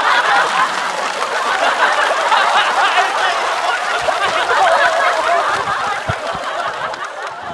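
Studio audience laughing: a long, loud wave of many voices laughing together, easing off a little near the end.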